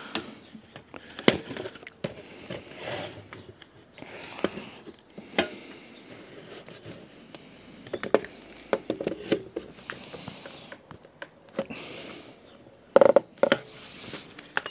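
Plastic quick-release bar clamps clicking and knocking as they are loosened and re-tightened on a laminate floorboard, with the board scraping as it slides along the workbench. A pair of sharp clicks comes near the end.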